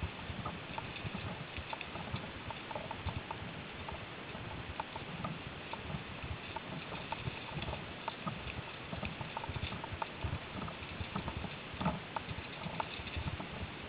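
Mountain bike rolling over a rough dirt woodland trail: tyres on dirt and leaf litter, with frequent irregular knocks and rattles as the bike jolts over bumps, over a steady background hiss.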